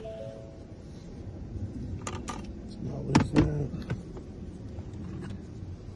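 Car keys being handled: small clicks and a jangle, with a louder clatter and a short low buzz about three seconds in. A pair of electronic beep tones stops just after the start.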